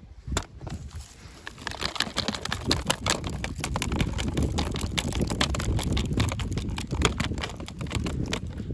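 Hands handling and crinkling plastic toy packaging: a dense run of irregular clicks and rustling that thickens about two seconds in.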